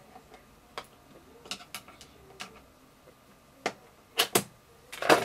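Screwdriver clicking against the metal shell of an AGM HK416 airsoft gearbox as the shell is pried open: scattered light clicks, then several louder sharp clicks near the end.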